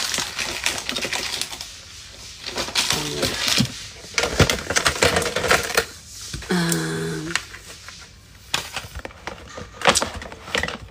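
Hard plastic phone cases clattering and clicking against each other and a clear plastic storage box as they are rummaged through by hand, in irregular bursts of sharp knocks. A short wordless hum of voice comes about two-thirds of the way through.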